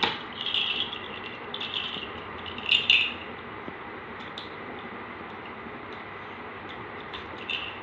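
A child's plastic activity ball rattling and clacking as it is rolled and turned in small hands. There are several short rattles in the first three seconds, the loudest near three seconds in, then only a few faint clicks.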